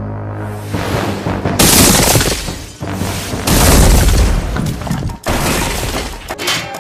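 Sound effects of destruction: several loud booms and crashes of explosions and collapsing buildings, the heaviest and deepest in the middle, over background music.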